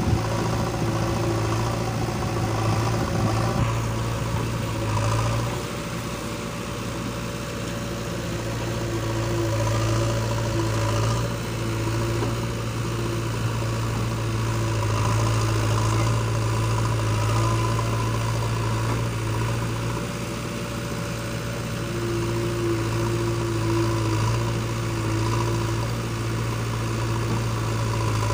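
JCB 3DX backhoe loader's diesel engine running steadily while the backhoe digs and lifts sand, the engine note rising and falling slightly with the working load.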